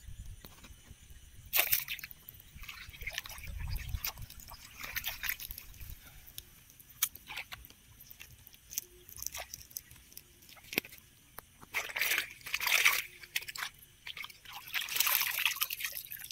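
Shallow water sloshing and splashing as a person wades through it and reaches into it by hand, in irregular bursts. The loudest splashes come about a second and a half in, around twelve to thirteen seconds in, and near the end.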